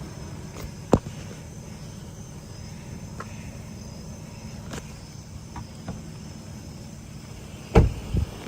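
Night insects trilling steadily over a low, steady engine hum. There is a sharp knock about a second in and a louder double thump near the end.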